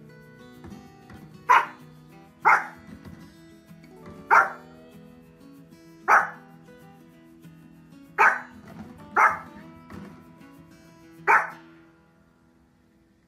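A small dog barking: seven sharp single barks, spaced one to two seconds apart. Background music plays softly underneath and fades out near the end.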